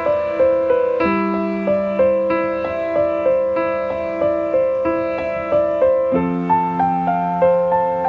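Background music: a soft keyboard melody of notes struck evenly a few times a second over held low notes that shift about a second in and again about six seconds in.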